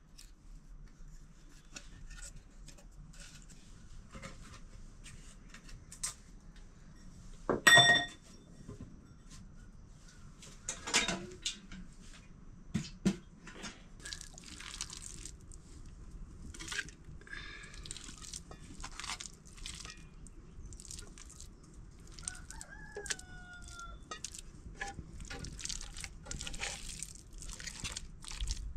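Crackling and rustling of a small wood fire being got going. There is a loud metallic clang about eight seconds in, and a few short falling bird calls later on.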